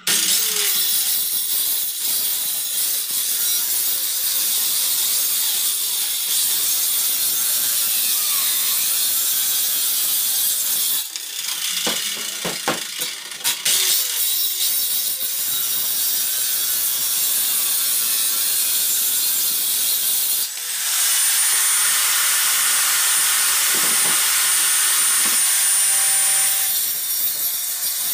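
Handheld electric circular saw cutting through a wooden panel, running loud and steady, with a short broken-up pause about eleven seconds in and a high whine over the cut in the second half.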